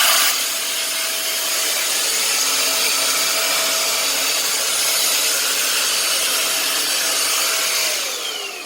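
Kitfort KT-509 vacuum cleaner, in handheld mode, running steadily at full power while vacuuming. About 8 seconds in it is switched off and its motor winds down, the pitch falling as it stops.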